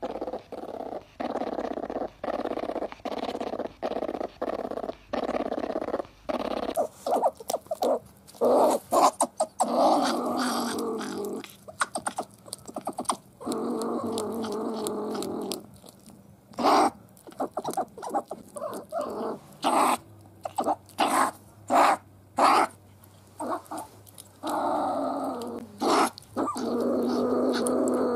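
Sable vocalizing: a run of short grunting calls about two a second, then, after a change about seven seconds in, sharp clicking chatters mixed with longer harsh growls lasting a second or more.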